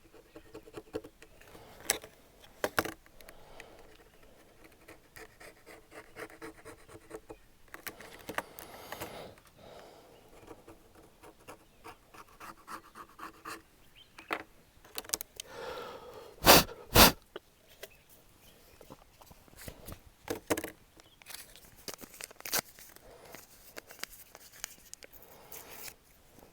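Scraping and small clicks of a tool cleaning old adhesive off the edges of a smartphone's plastic housing, with two sharp clicks past the middle.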